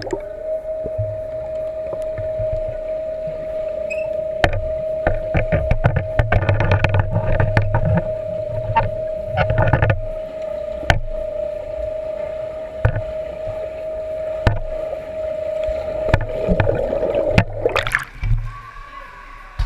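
Pool sound heard through a submerged action camera: a steady hum with irregular clicks and knocks from swimmers moving through the water. Near the end the camera breaks the surface in a splash and the hum stops.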